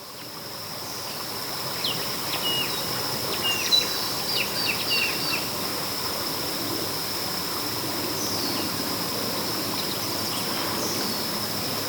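Wetland ambience: a steady high-pitched insect drone, with birds calling in clusters of short chirps between about two and five seconds in, and a couple of single falling notes later.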